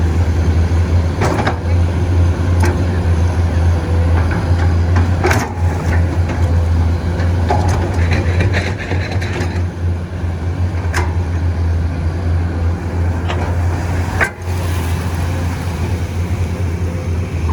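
Excavator's diesel engine running steadily with a deep drone, with a few sharp metallic clanks through it.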